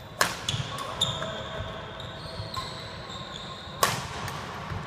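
Badminton rackets striking a shuttlecock during a smash-and-drop drill: several sharp smacks, the loudest a little before the end.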